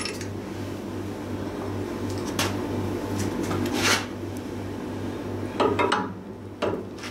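Metal workshop parts being handled on a bench: a few clinks and knocks and a short scrape, over a steady low hum.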